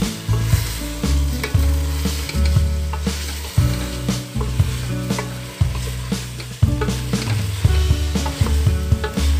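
Aloo gosht curry sizzling as it fries in a steel pot, with a spoon stirring and scraping against the pan in frequent short clicks.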